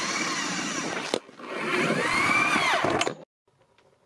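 Power drill spinning a long twist bit through the truck's plastic underbody shroud. The motor stops briefly about a second in and starts again. On the second run its pitch rises and then falls before it stops abruptly about three seconds in.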